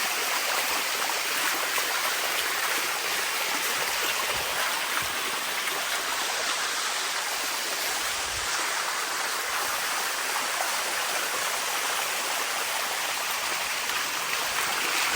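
Water rushing steadily down the cascades of a sticky waterfall.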